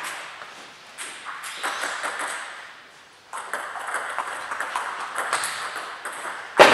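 Table tennis balls clicking off bats and tables, from the near table's serve and rally and from matches at other tables. Near the end comes one much louder sharp crack.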